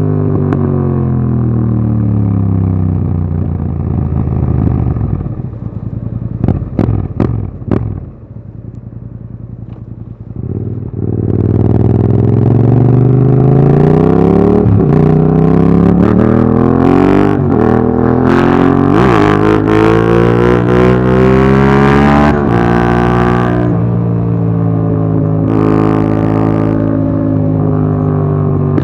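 Yamaha MT-07's parallel-twin engine through an Akrapovic Racing Line exhaust with its dB killer fitted. The revs drop as the bike slows, with a few sharp cracks, and it idles briefly. It then accelerates hard up through the gears, the revs climbing and breaking at each shift about four times, before it settles to a steady cruise.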